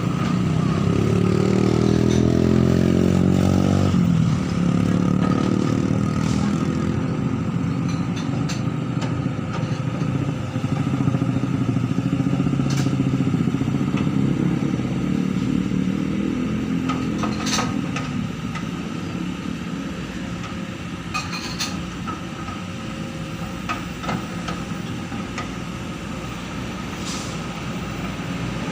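Excavator diesel engine running under load, its pitch climbing over the first few seconds and then dropping, then easing off in the second half, with occasional sharp metal clanks.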